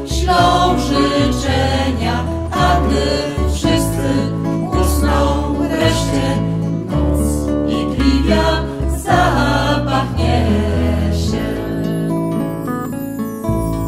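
A Christmas song: a small mixed group of voices singing in harmony with guitar accompaniment.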